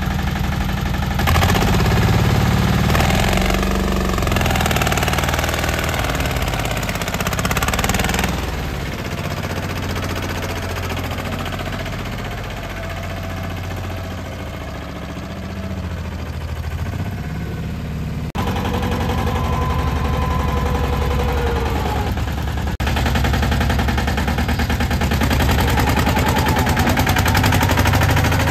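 Escorts Steeltrac mini tractor's diesel engine chugging as it pulls a trolley loaded with cement bags. It is louder for the first several seconds, eases off through the middle, and comes back up near the end.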